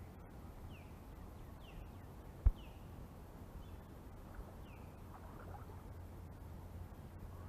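Steady low outdoor rumble with a bird calling in short falling chirps, four in the first few seconds, and a single sharp thump about two and a half seconds in.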